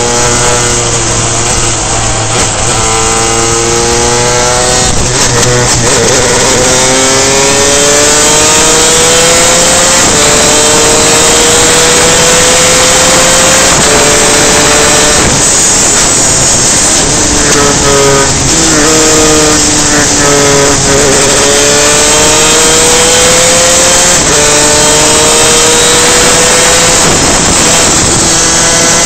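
Superkart's two-stroke racing engine running hard, its pitch climbing through each gear and dropping sharply at each shift, about half a dozen times.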